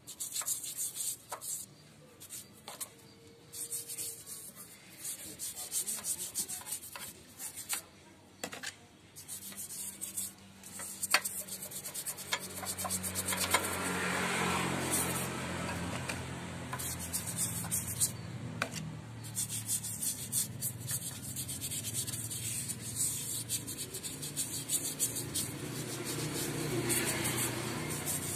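Toothbrush-style stiff brush scrubbing the aluminium crankcase of a small diesel engine with cleaning fluid, in rapid back-and-forth bristle strokes that work off crusted grime. The scrubbing comes in short bursts at first, then runs on steadily. A low steady hum comes in underneath about ten seconds in.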